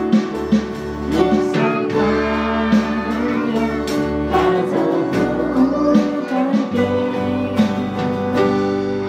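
A Christian children's worship song with singing over guitar accompaniment.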